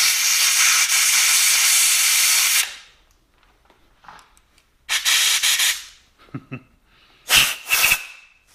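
Compressed-air blow gun blasting chips and tapping lube out of a freshly tapped hole in a cast iron vise: one long hiss of about two and a half seconds, then two shorter blasts about five seconds in and near the end.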